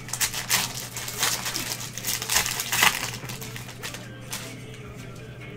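Trading-card pack wrapper crinkling as it is torn open and handled, a dense run of sharp crackles for about three seconds, loudest near the end of that run, then quieter rustling.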